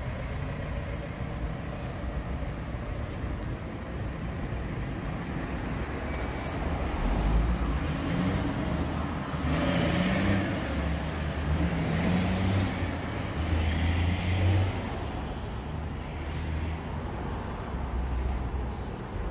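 Steady road traffic, growing louder for several seconds in the middle as a vehicle passes.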